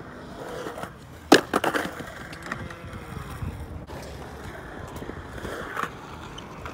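Skateboard sounds on concrete: a loud crack of the board about a second and a half in, followed by a few quick clacks, then wheels rolling and another knock near the end.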